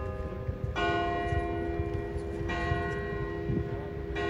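Church bells ringing, a fresh stroke about every second and a half with each one humming on into the next, three strokes in all.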